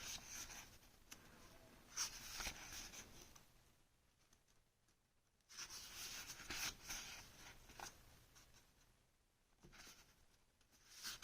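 Pages of a replica Book of Dragons being turned and handled: quiet paper rustling in several short bouts, with pauses between them.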